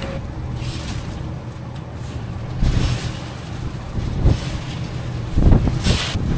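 Heavy farm machinery engine running steadily, with wind buffeting the microphone and a few low thumps about three, four and five and a half seconds in.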